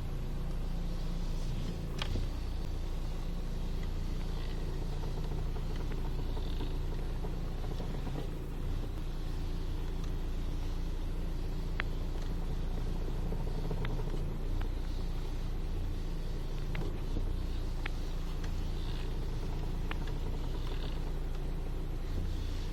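Audi A4 B5 with its engine running, a steady low rumble, while the steering wheel is turned. Sharp single clicks come every few seconds, with a few brief higher creaks between them: the steering noise that the owner is trying to track down.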